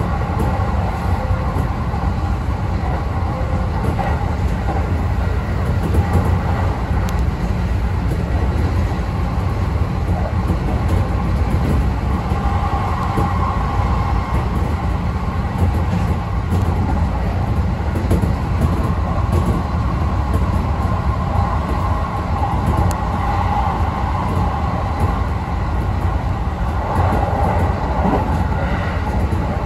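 Electric express train running along the line, heard from inside the front car: a steady rumble of wheels on rails. A mid-pitched hum swells and fades a few times.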